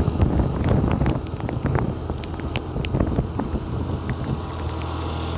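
Wind buffeting the phone's microphone on a moving scooter, over a low steady hum of the scooter and road, with scattered sharp ticks.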